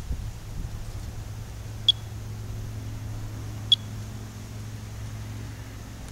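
Monitor 4 Geiger counter chirping twice, about two seconds apart: short, sharp high chirps, each one a detected radiation count. A steady low hum runs underneath.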